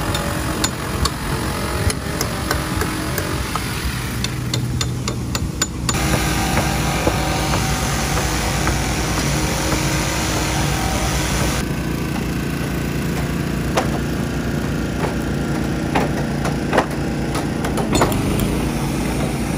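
Hammers and pry bars knocking on wooden rafter framing, with a quick run of strikes about five seconds in and scattered blows later, over a steady motor running in the background.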